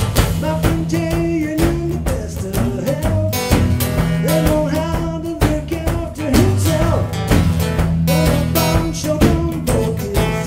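Rock-blues band music: guitars and drums with a steady beat under a moving melody line.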